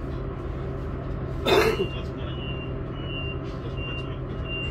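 Steady running hum of a Talent 2 (class 442) electric multiple unit, heard on board. About a second and a half in comes a brief loud rush of noise, and in the second half a faint high-pitched tone comes and goes.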